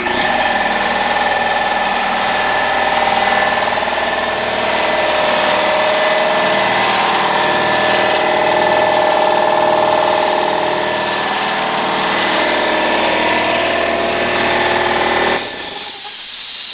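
Ingersoll Rand 8-gallon twin-tank wheelbarrow air compressor, a 230-volt electric unit, running steadily as it pumps up tank pressure. It cuts off abruptly about fifteen seconds in, as the pressure switch shuts the pump off at about 135 psi.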